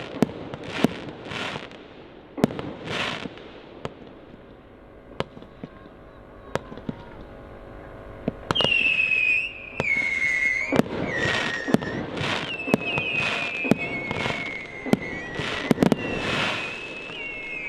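Fireworks display: aerial shells going off in sharp bangs, some followed by a rushing crackle. From about halfway, high whistling tones of whistle fireworks join in, sliding slowly down in pitch between the bursts.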